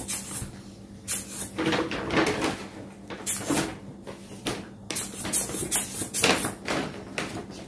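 Irregular short bursts of rattling and rustling as a small toy ball is handled and shaken in front of a baby, over a faint steady hum.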